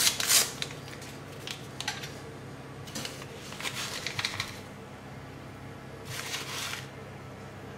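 A metal teaspoon scooping baking powder out of a paper sachet: a sharp clink at the start, then bursts of short, papery scraping and rustling strokes about three seconds in and again about six seconds in.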